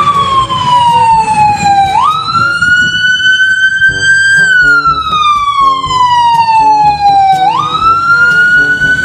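A toy ambulance's electronic siren sounding. Its single wailing tone slides slowly down, leaps quickly back up twice, and rises and sinks slowly in between, in a cycle of about five and a half seconds.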